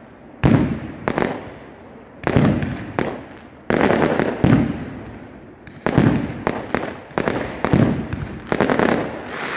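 Fireworks display: a rapid series of aerial shell bursts, about a dozen sharp bangs in under ten seconds, each followed by a rumbling echo and crackle.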